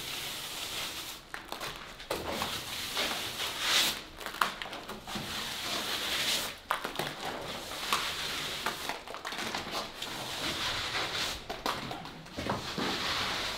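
Broom bristles brushing down over a fresh sprayed-on mortar scratch coat on a wall, in repeated scratchy strokes about every one to two seconds. The broom roughens the coat so that the next layer of plaster can bond to it later.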